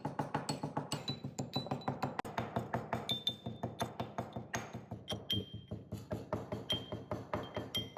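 Metal mortar and pestle (hamam dasta) pounding whole spices: fast, steady strikes, about six a second, with a ringing metallic clink on some blows.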